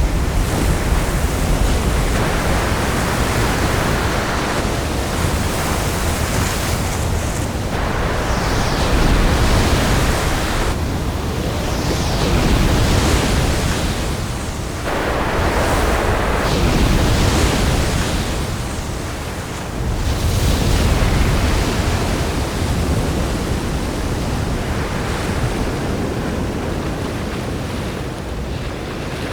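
Designed storm-sea sound effect: heavy ocean waves surging and crashing with wind, as one continuous wash of noise. Several big swells rise and break a few seconds apart, easing off slightly near the end.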